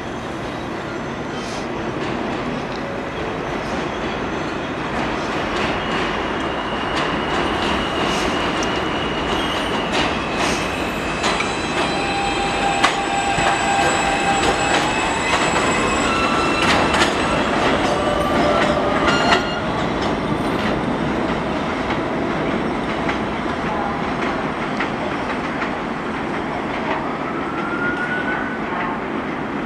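New York City subway trains on an elevated line: a steady rumble as a second train runs in on the adjacent track, with wheel squeal, whining tones and sharp clacks over the rail joints, loudest about halfway through. Near the end a short rising whine.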